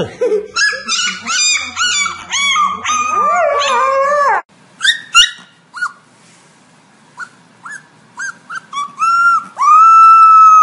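Husky puppy howling in a run of high, wavering cries for about four seconds. Then a second puppy gives a few short yips that build into one long, steady howl near the end.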